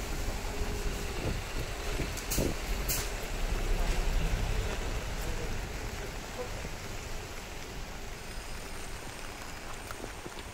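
Street traffic in the rain: a heavy vehicle rumbles past, swelling to its loudest about four seconds in and then fading, over a steady hiss of rain and wet road. Two short sharp hisses come a little after two seconds.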